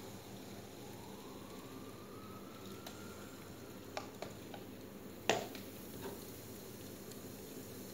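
Faint steady fizzing from a baking-soda-and-vinegar model volcano, with a few light clicks of a small plastic container about four seconds in while more baking soda is shaken into the crater, then a sharp knock a little after five seconds as the container is set down on the table.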